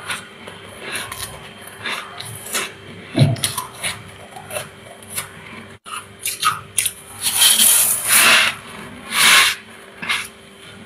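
Crunching bites into thick freezer frost and ice, and a metal spoon scraping frost off a freezer's inside walls in rasping strokes, with the longest, loudest scrapes a few seconds from the end. A faint steady hum runs underneath.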